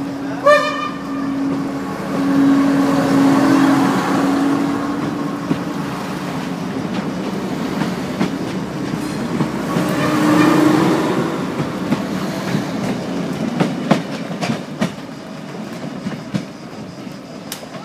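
Stadler GTW diesel multiple unit pulling out and passing close, its diesel drive giving a steady droning hum. A brief high-pitched tone sounds about half a second in. As it draws away, a run of sharp wheel clicks over the rail joints and points follows.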